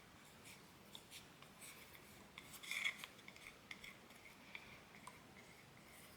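Faint rubbing and light ticks of a silicone brush spreading Mod Podge over a wooden egg shape, with a slightly louder rub about three seconds in.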